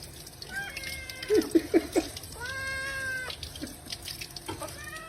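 A cat meowing repeatedly: a short meow, a quick run of three or four short loud calls, a long drawn-out meow held at an even pitch, then another short meow near the end.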